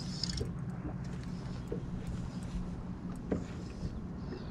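A boat motor humming steadily at a low, even pitch, with a few faint ticks over it.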